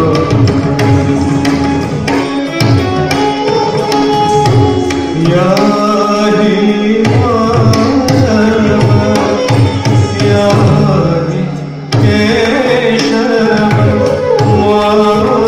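Live Odissi classical accompaniment: a hand drum played in quick rhythmic strokes under a bamboo flute melody. The music dips briefly and comes back sharply about twelve seconds in.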